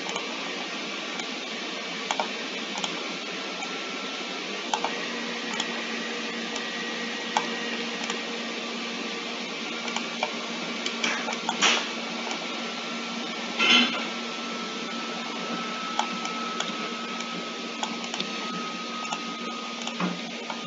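Steady hiss of room noise with a faint hum, broken by scattered light clicks and two louder knocks about 12 and 14 seconds in.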